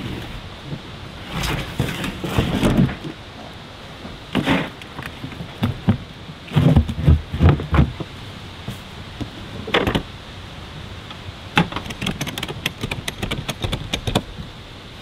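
Knocks and thumps of a large plastic cooler being shifted and strapped down on a metal vehicle roof rack, with a run of quick rattling clicks near the end.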